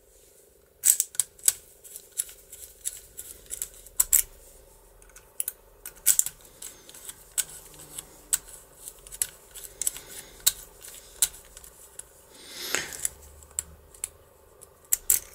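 Sharp irregular clicks and snaps of a DOM IX euro profile lock cylinder with a gear cam being worked by hand with its key: the key going in and turning, pins and cam clicking over, with a short scraping rub near the end. The cylinder has just been taken apart and reassembled and is being tested.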